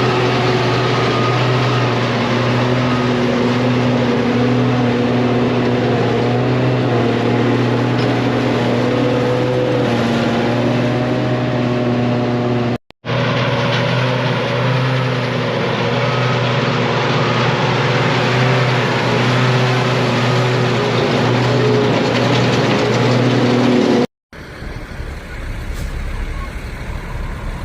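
Heavy diesel engine running steadily under load, a constant drone with a slightly wavering pitch, broken by two abrupt edit cuts; after the second cut, a quieter, rougher engine rumble with a few faint clicks.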